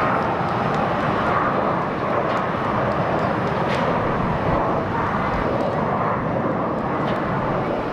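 Boeing 787-9 airliner's Rolls-Royce Trent 1000 jet engines running at taxi power, a steady, even rumbling hiss.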